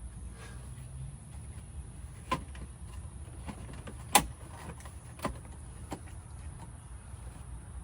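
A few sharp clicks and knocks from hand work on a car's interior trim, the loudest a single knock about four seconds in, over a steady low hum.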